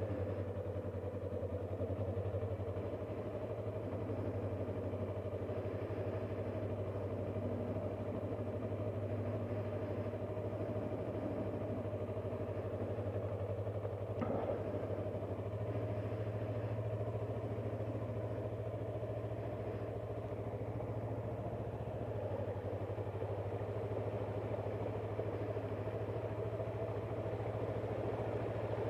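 Yamaha R3 motorcycle's parallel-twin engine running at low, steady revs as the bike rolls slowly, with one brief knock about halfway through.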